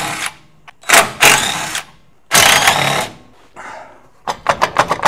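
Cordless electric ratchet running in three short bursts of under a second each, spinning out the 15 mm bolts that hold the rear brake backing plate on a VW bus trailing arm. Near the end comes a fast run of clicks, about ten a second.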